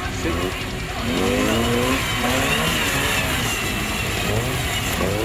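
Off-road 4x4's engine revving hard in repeated rising bursts, pitch climbing and dropping again several times, with a high whine running above it.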